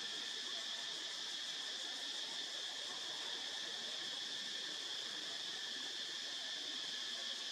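Steady, high-pitched insect chorus, a continuous drone that holds level without breaks.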